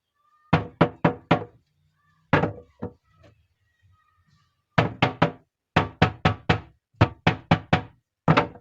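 Sharp knocks on a hard surface in quick runs of three to five, about three or four a second, with short pauses between runs.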